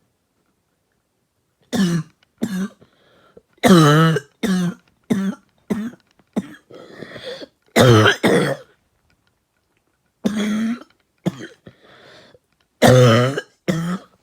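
A person coughing repeatedly from irritation after drawing smoke from a bong: about a dozen short, hacking coughs in clusters, starting about two seconds in, with fainter breaths drawn between them.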